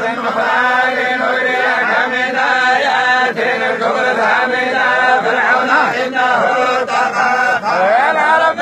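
A group of men reciting the Quran together in unison, a continuous melodic chant with the voices gliding up and down in pitch.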